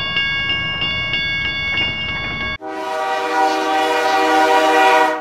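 Railway level-crossing warning bell ringing in rapid even strikes, about three a second. About two and a half seconds in, it gives way to a long train horn blast over the rushing noise of a passing train.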